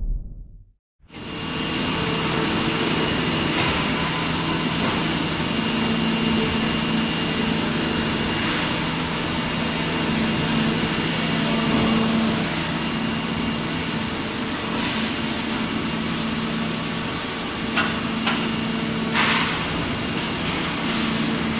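Steady mechanical hum and hiss of a Sandretto 2054-380 injection moulding machine and its factory hall, starting about a second in, with a few brief knocks near the end.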